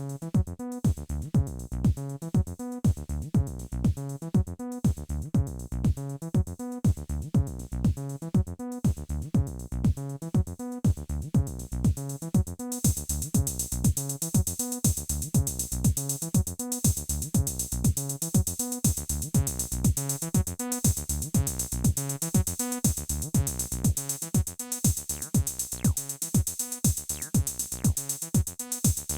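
Roland T-8 beat machine playing a pattern: a steady electronic kick with a synth bass line underneath. About halfway through, a bright cymbal-like layer joins the beat.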